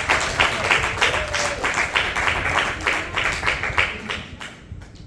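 A congregation applauding with dense hand clapping, which thins out and fades away about four seconds in.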